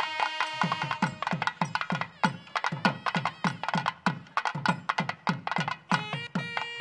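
Traditional South Indian music, carried mostly by a fast run of hand-drum strokes, each hit dropping in pitch. A held melodic tone comes back near the end.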